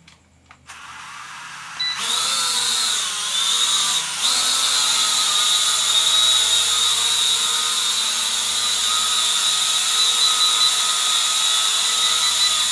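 E99 toy quadcopter drone flying: its small electric motors and propellers give a steady high whine that starts faintly, rises sharply about two seconds in, and wavers a little in pitch as it is flown.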